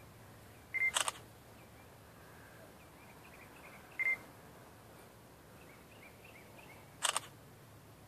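Camera taking photos: a short high focus beep followed by a sharp shutter click about a second in, another lone beep about four seconds in, and a second shutter click near the end.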